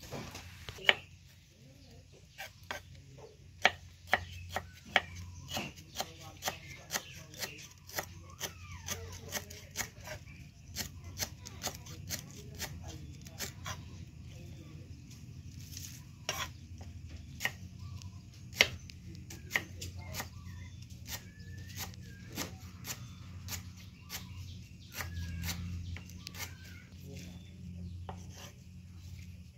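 A knife chopping food on a cutting board: sharp knocks about two a second for a stretch, then more irregular.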